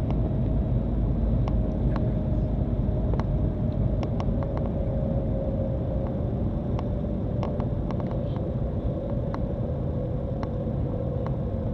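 Shanghai Maglev train heard from inside the passenger cabin while running at speed: a steady low rumble with a hum that slowly falls in pitch, and a few faint scattered ticks.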